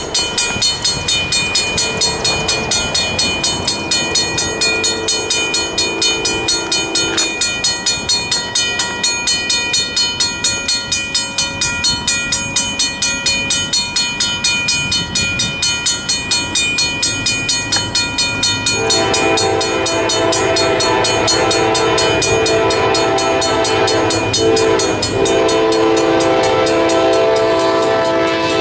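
Safetran mechanical crossing bell ringing in rapid, even strokes at an activated railroad grade crossing. An approaching freight locomotive's horn blows a long blast until about seven seconds in, then comes back louder about nineteen seconds in and keeps sounding with short breaks, half covering the bell.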